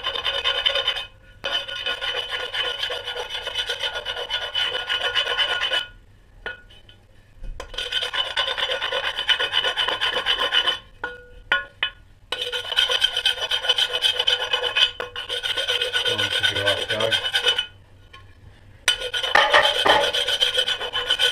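Rasping, rubbing work on a hard surface in spells of a few seconds each, with short pauses between.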